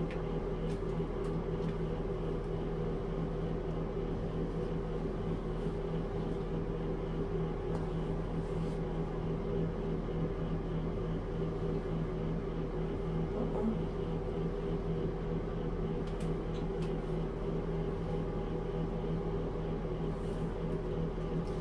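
A steady machine hum with a few faint light clicks.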